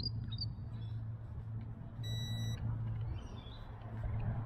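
A single short, high electronic beep about two seconds in, the signal that the drone's horizontal compass calibration is done and the vertical step begins. A steady low hum runs underneath.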